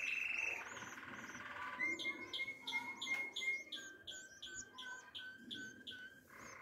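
Canaries chirping: a steady buzzing trill, then from about two seconds in a run of quick, high chirps, about three a second.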